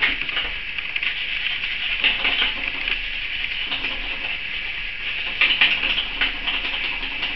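A felt-tip marker rubbing over a flattened cardboard paper towel roll as it is colored green, in a run of short strokes that are busiest about five and a half seconds in.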